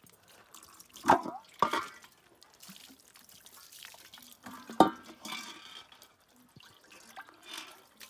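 Water poured from a plastic jug into a large aluminium pot, sloshed and tipped out onto concrete, with splashing and drips. A few sharp knocks of the metal pot, the loudest about five seconds in.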